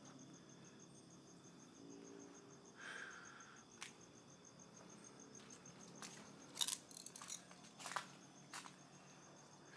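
Night insects trilling steadily in a fast, even pulse, with a few sharp clicks and crunches about six to eight seconds in.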